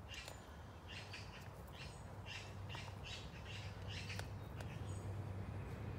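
Bird giving a series of short, harsh squawking calls, several a second at times, over a faint steady outdoor hum.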